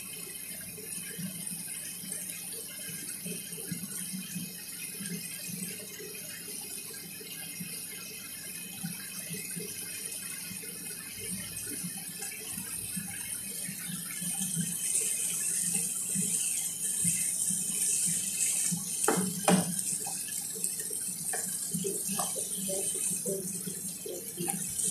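Shrimp and sauce sizzling and bubbling in a frying pan, a steady hiss with faint popping that grows louder about halfway through. Near the end come a few knocks and the scrape of a wooden utensil stirring the pan.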